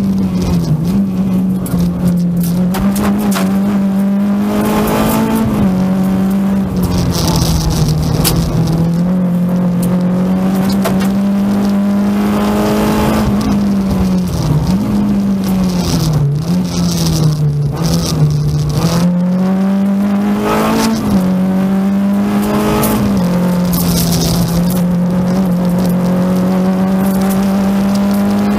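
Renault Clio 16V rally car's four-cylinder engine heard from inside the cabin at stage pace, its revs repeatedly climbing and falling back through gear changes and braking.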